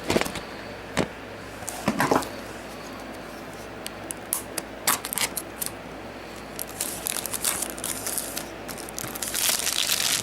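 Plastic shrink wrap being torn and peeled off a Blu-ray case: scattered crackles and sharp clicks, then a denser stretch of crinkling near the end.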